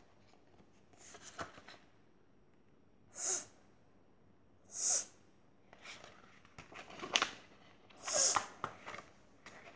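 Three short sniffing breaths spread through a quiet stretch, with a few light clicks and rustles from a paperback picture book being held up and moved around in the hands.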